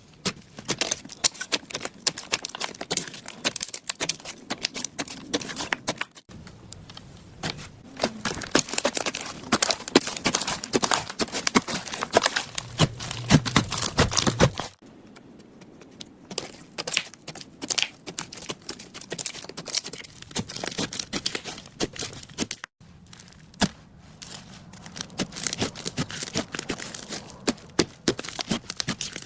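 Slime being squished and pressed, giving a dense run of small crackling clicks and pops. The sound changes abruptly about 6, 15 and 23 seconds in, as one short clip cuts to the next.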